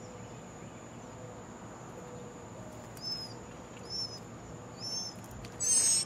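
Songbird nestlings calling from the nest: short high chirps about once a second, then a louder burst of chirping near the end as the parent arrives to feed them, typical of begging calls.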